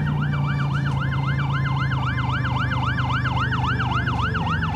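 Electronic siren of a toy fire engine, a fast up-and-down warble repeating about four to five times a second over a low steady hum.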